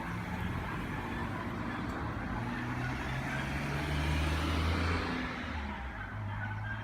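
Gakunan Railway 7000-series electric railcar passing over the level crossing, its running noise and low motor hum swelling to a peak about four to five seconds in, then fading, while the crossing's electric gong bells ring.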